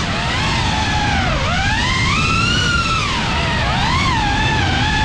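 FPV drone's motors and propellers whining, the pitch sliding up and down all the time with the throttle, with a deep dip about a second and a half in.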